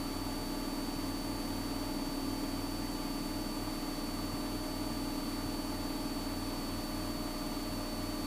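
Steady drone of a Cessna 172's piston engine and propeller in flight, with an even hiss and a thin, constant high whine over it.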